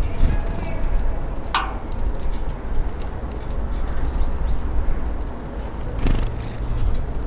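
Steady low outdoor background rumble, with a few faint short high chirps and clicks over it, one sharper high note about one and a half seconds in.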